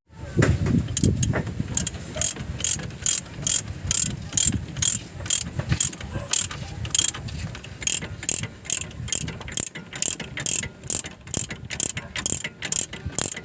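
Hand ratchet wrench clicking in quick, even strokes, about three to four clicks a second, as a bolt is turned, with a few low knocks in the first second or two.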